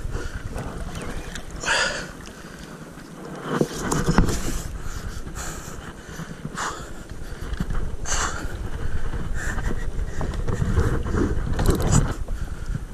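Wind buffeting the microphone with water washing and slapping against a plastic sit-on-top kayak's hull, in several short splashy surges over a steady low rumble.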